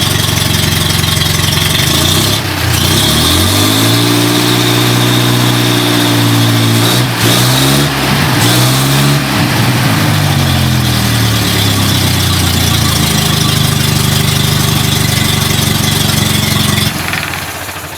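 Wisconsin V4 gas engine running on a test stand: it is revved up about three seconds in, held at higher speed for several seconds, let back down to idle, and shut off about a second before the end.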